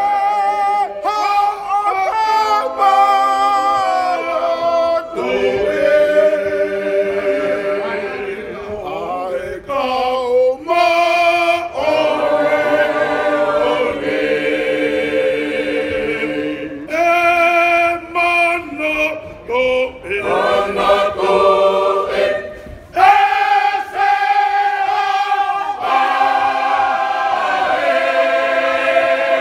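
Tongan church choir singing a hymn a cappella in several parts: long held chords, with short breaks between phrases about a third, a half and three quarters of the way through.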